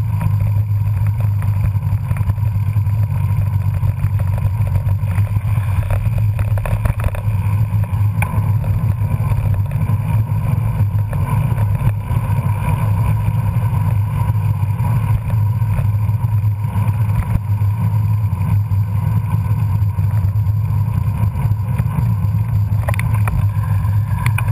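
Steady low rumble on a bicycle-mounted camera's microphone while riding: wind and road noise, loud and unchanging throughout.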